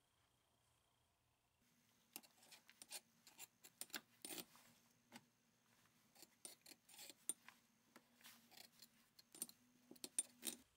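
Irregular light metallic clicks and clinks from the differential gear and cast transaxle case of a lawn tractor being handled with a gloved hand, starting about a second and a half in.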